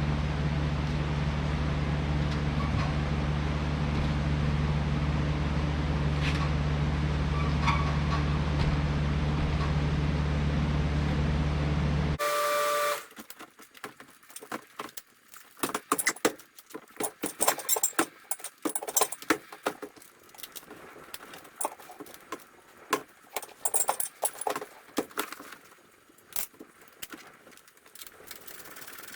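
A steady low machine hum runs for about twelve seconds and then cuts off abruptly. After that come scattered light metallic clinks and rattles, small metal parts being handled.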